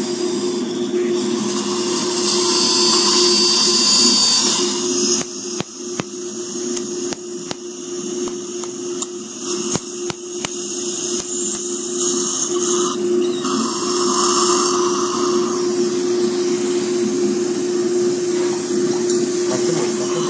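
Surgical dental handpiece with a bur drilling bone around an impacted lower third molar, a steady whine, together with the hiss of the surgical suction drawing up irrigation and bone debris. A few short clicks in the middle.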